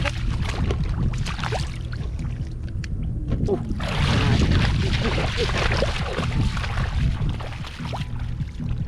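Water sloshing and splashing as someone works through shallow water, over a steady low drone.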